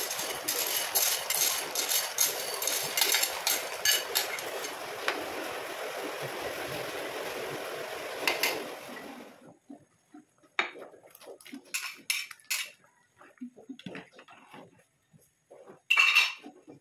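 A metal spoon scraping and clinking against a glass bowl as dry macaroni is tipped into a pot of boiling soup, over the steady bubbling of the boil, then a ladle stirring the pot. After about nine and a half seconds the boiling sound cuts out, leaving scattered light clinks and knocks, with a louder clink near the end.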